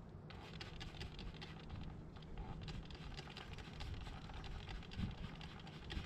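Multi-purpose cleaner being sprayed onto a motorcycle drive chain: a faint, even hiss with light crackling.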